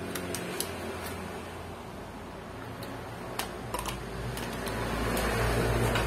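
Scattered sharp plastic clicks and snaps as the clips of a netbook's plastic casing are prised apart by hand, over a steady low background rumble that grows louder in the second half.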